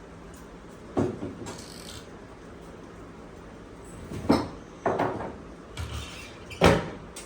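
Kitchen things being put away: about four separate knocks and clatters, the loudest near the end.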